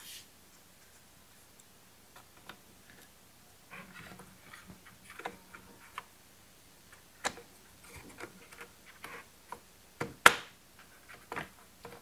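Irregular small clicks and taps of a screwdriver and hands working screws into a string trimmer's black plastic housing at the carburetor, with one sharper click about ten seconds in.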